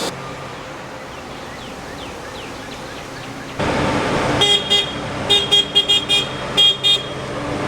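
A vehicle horn honking in a string of short, irregular toots lasting a couple of seconds, over a steady engine-and-road noise that comes in suddenly about halfway through.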